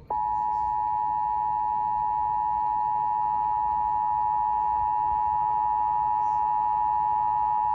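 Emergency Alert System attention signal: the two-tone alert of 853 Hz and 960 Hz sounding together as one steady, loud, unwavering tone that starts abruptly. It announces an emergency alert, here a severe thunderstorm warning broadcast over FM radio.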